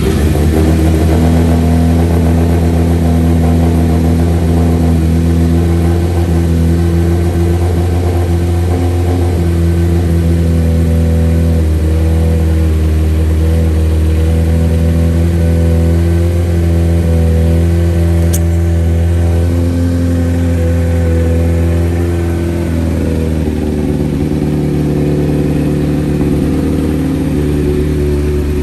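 2007 Honda CBR1000RR's 998 cc inline-four, breathing through a slip-on exhaust, catches at the start and runs steadily, now restarted with its stuck throttle freed so it is no longer held wide open. The sound eases slightly about two-thirds of the way through.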